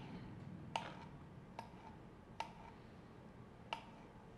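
Kitchen knife striking a cutting board as black olives are sliced: four short, sharp clicks about a second apart, the last after a longer gap.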